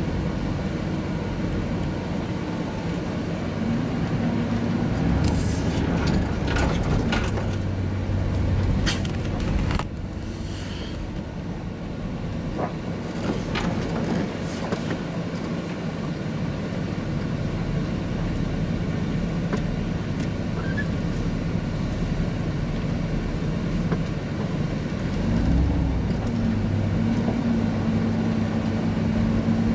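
Car engine and road noise heard from inside the cabin as the car drives slowly. A scatter of clicks and knocks comes between about 5 and 15 seconds in, and the engine note shifts up near the end.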